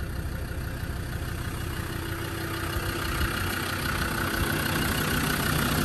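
Land Rover Defender 90 Td5's 2.5-litre five-cylinder turbodiesel idling steadily just after starting up, running as it should, growing gradually louder toward the end.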